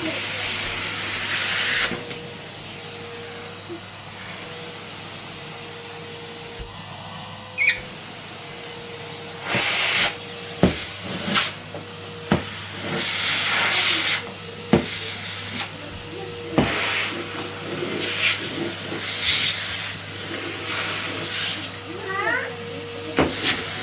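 Red Henry canister vacuum cleaner running steadily, with louder rushes of hiss every few seconds and scattered sharp knocks as the nozzle hits things.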